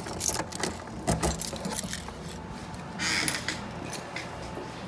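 Keys jangling and a door's lock and knob clicking as the front door is unlocked and opened, then a short scuffing noise about three seconds in.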